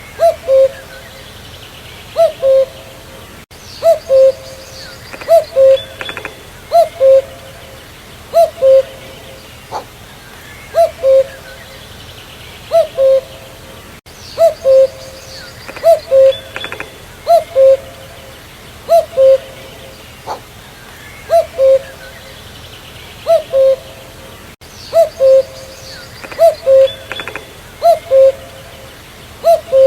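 Common cuckoo calling its two-note "cuck-oo", a higher note dropping to a lower one, repeated steadily about every one and a half seconds. Faint chirps of other birds sound in the background.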